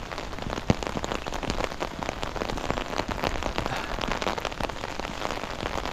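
Rain falling on an open umbrella held just above the microphone, a dense, steady stream of small sharp taps on the canopy.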